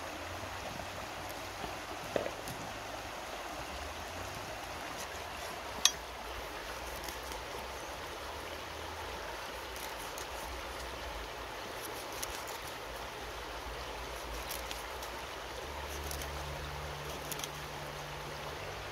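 Shallow river water running steadily over stones, with two sharp knocks, the louder about six seconds in, and a few light clicks later on.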